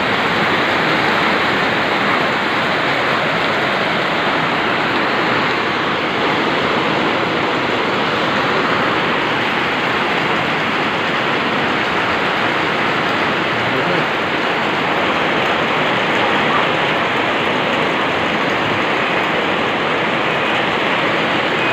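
Heavy, steady downpour of typhoon rain falling on a corrugated metal roof. It is rain alone, with no wind.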